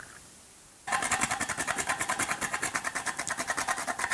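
Whole nutmeg grated by hand: fast, even scraping strokes, about ten a second, starting about a second in.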